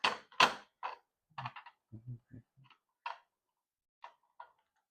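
A series of short clicks and knocks from objects being handled during an unboxing, the loudest about half a second in.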